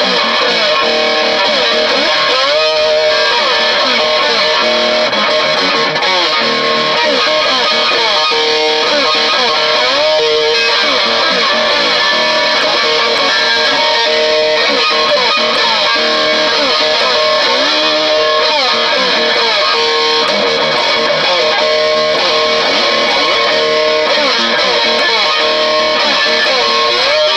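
Electric guitar played with a slide through a Marshall amp, a continuous line of notes sliding up and down in pitch.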